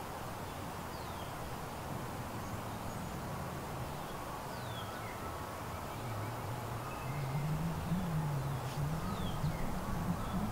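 Woodland birds calling in short, thin, descending chirps several times over a steady outdoor hiss. About halfway through, a low wavering drone grows louder.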